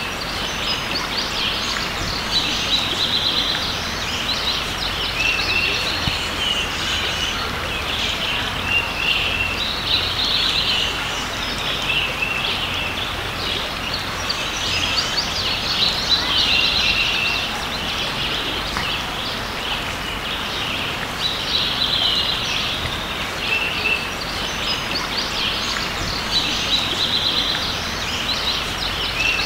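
Songbirds singing short repeated phrases every few seconds over a steady rush of creek water.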